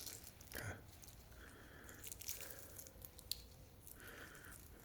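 Shell of a hard-boiled egg, soaked in cold water, being cracked and peeled by hand: faint, scattered crackles and small clicks as it comes away easily.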